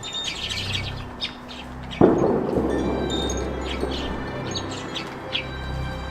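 Small birds chirping in quick, short calls. About two seconds in, a sudden loud rush of noise starts and fades over about a second.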